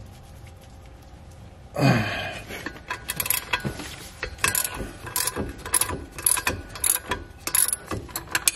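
Ratcheting wrenches loosening the 18 mm nuts on a driveshaft flex disc's (guibo's) bolts: a sudden loud creak about two seconds in, likely as a nut breaks free, then repeated bursts of ratchet clicking.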